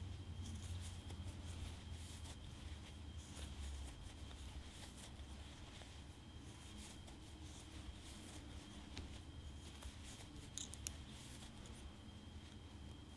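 Faint scratching and rustling of chunky yarn being worked with a bamboo crochet hook, with a few small clicks about ten seconds in, over a steady low hum and a faint high whine.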